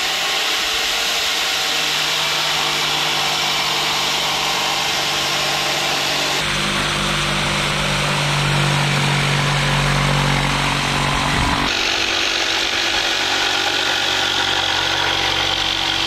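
Corded jigsaw running steadily as its blade saws through a plywood board. The sound changes abruptly twice, about six and twelve seconds in.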